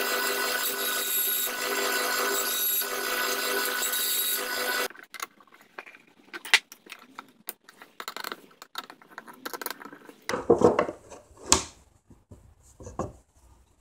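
Bandsaw running with a steady whine while cutting small wooden blocks. It cuts off about five seconds in, followed by scattered sharp clicks and wooden knocks as a sharpening stone is set and clamped between the wooden jaws of its holder.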